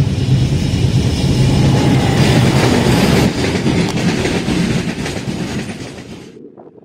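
Diesel-hauled Indian Railways train passing: a steady low engine drone with wheels clattering on the rails, fading away and then cutting off about six seconds in.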